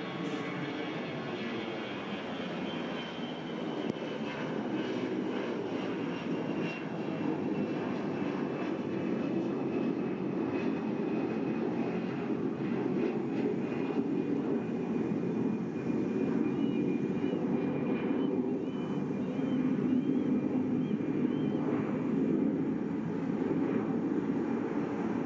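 Jet airliner's engines running, a dense steady rumble growing slowly louder, with a high whine that falls gently in pitch.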